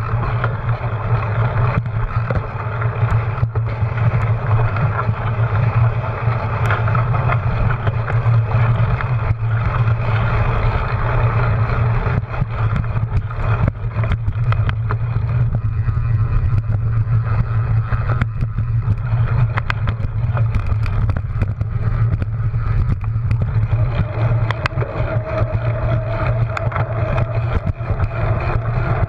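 Wind buffeting a handlebar-mounted action camera on a cyclocross bike ridden at race pace, with tyre noise over sand and grass and frequent knocks and rattles from the bike over bumps. A steady hum comes in near the end as the bike reaches pavement.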